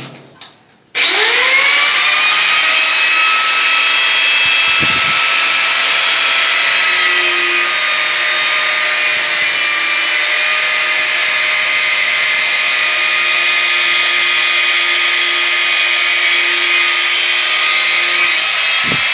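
Electric angle grinder switched on about a second in, its whine rising as the motor spins up, then running loud and steady while its abrasive cutting disc cuts through a threaded metal pipe nipple.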